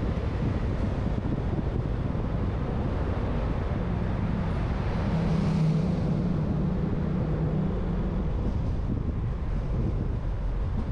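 Car driving on city streets: a steady low rumble of road and wind noise. A vehicle's engine hum swells about halfway through and is loudest near the middle before fading.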